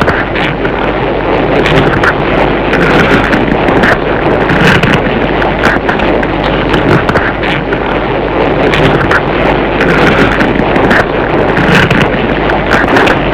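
Showa-era tokusatsu kaiju fight sound effect: a loud, continuous rumbling roar of noise with many short crackles and swells that recur every second or two.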